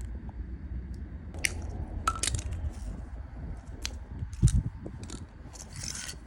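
Scattered light clicks and clinks of small hard objects being handled, over a low rumble, with one heavier thump about four and a half seconds in.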